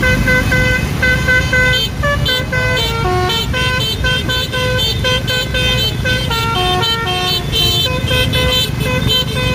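Indonesian bus 'telolet basuri' musical air horn playing a quick melody of short held notes that step up and down in pitch, over a low engine rumble.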